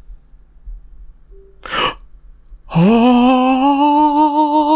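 A man's sharp intake of breath, then a long drawn-out vocal 'ooooh' that rises in pitch and is held with a wavering tremble for about two seconds. It is an exclamation of delight as the broken SD card is read.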